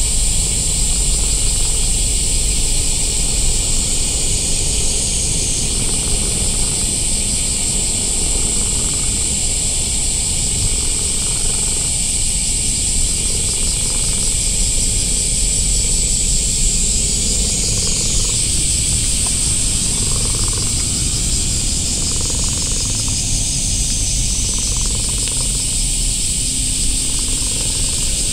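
A steady, high-pitched insect chorus drones throughout, shifting slightly in pitch a few times, over a low rumble.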